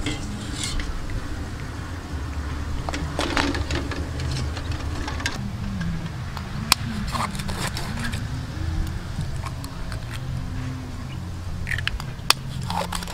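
A steady low rumble with a wavering engine-like hum through the middle, and scattered clicks, the two sharpest about six seconds apart, from boiled balut duck eggs being handled and tapped with a knife to crack the shell.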